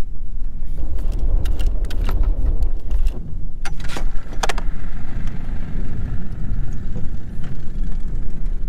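Small outboard motor on an inflatable dinghy running with a steady low rumble, with a run of knocks and rattles from about one and a half to four and a half seconds in.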